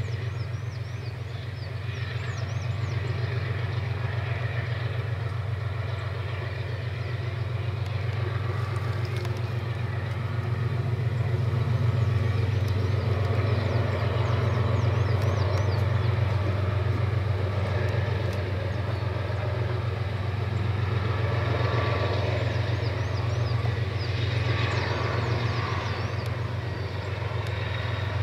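Diesel-electric freight locomotives of an empty distributed-power train working at full power up a steep grade: a steady, deep engine drone that swells and eases slightly as the train passes.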